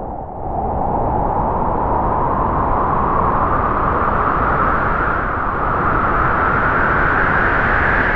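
A spooky Halloween sound effect: a steady rushing, whooshing noise whose pitch slowly creeps upward.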